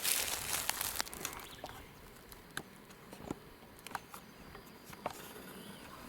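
Rustling and crackling footsteps through dry leaf litter and brush, loudest in the first second and then a scatter of small snaps.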